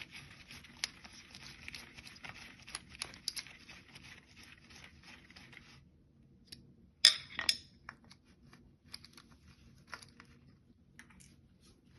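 Small metallic clinks and rattles of microwave parts being handled while the high-voltage diode is taken out, with two sharp clacks about seven seconds in. A faint hiss underneath stops about six seconds in.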